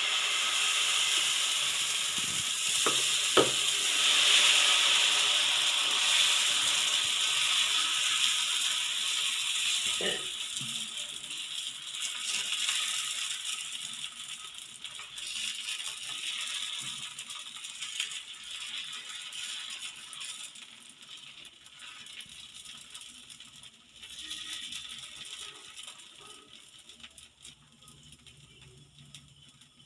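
Dosa batter sizzling and crackling on a hot pan as it is poured and spread with a ladle, with a few knocks of the ladle against the pan about three seconds and ten seconds in. The sizzle fades gradually as the dosa cooks.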